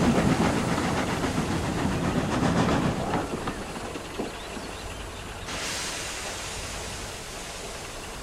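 Steam locomotive running on rails, its rumble fading over the first few seconds, then a short burst of hissing steam about five and a half seconds in, leaving a low steady rumble.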